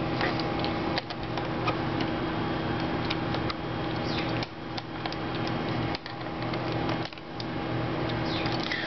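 Small clicks and scrapes of a screwdriver tip and fingers working cable connectors loose on a PowerBook G4's aluminium top case, over a steady hum with a few fixed tones.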